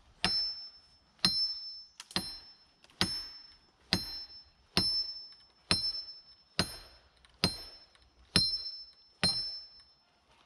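Eleven evenly spaced hammer blows on metal, a little under a second apart. Each is a sharp hit with a short, high metallic ring, struck at the base of a dead maple snag being cut down.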